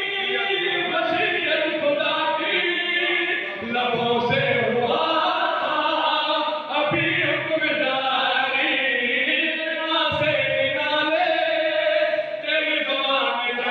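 A man chanting devotional verses into a microphone in long, held melodic phrases, with short breaks for breath every few seconds.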